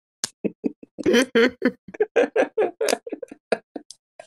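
Men's voices making quick, choppy nonsense mouth noises with no real words.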